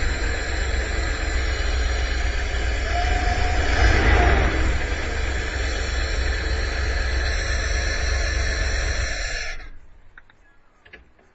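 Dodge Tradesman van's carbureted engine idling steadily, heard up close through the open engine cover inside the van. The running sound stops about nine and a half seconds in, leaving only a few faint clicks.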